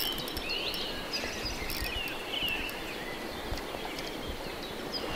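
Small birds chirping repeatedly over a steady hiss of flowing river water, with a few faint clicks.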